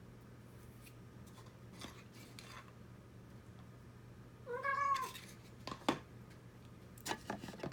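A house cat meows once, a short pitched call about halfway through. A few light clicks and taps follow near the end.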